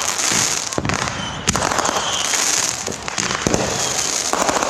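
Fireworks going off at close range: a dense crackle of many quick pops, with a fresh sharp burst about a second and a half in.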